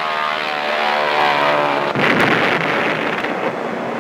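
Propeller aircraft engines droning steadily. About halfway through, a sudden loud rushing rumble takes over, as of a bomb blast.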